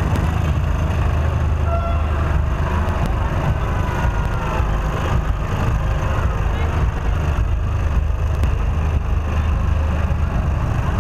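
Tractor engine running steadily as it tows a parade float at walking pace, a continuous low rumble, with scattered voices of people walking alongside.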